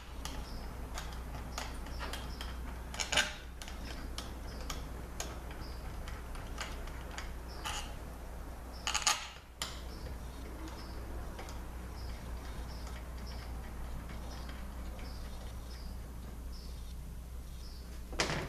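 Light metallic clicks and taps from bolts and parts being handled and set in by hand on a 5L40E transmission valve body, with a few louder clinks about three seconds in, around nine seconds in and near the end. A steady low hum runs underneath.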